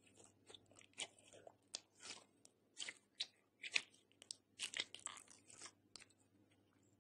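Green glossy slime being stretched, folded and squeezed by hand, giving a string of short, irregular crackling clicks that stop about a second before the end.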